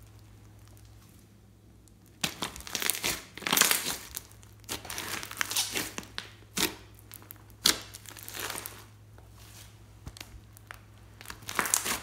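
Hands squishing and kneading glossy slime mixed with foam beads (floam), making wet, crunchy squishes in irregular bursts that start about two seconds in.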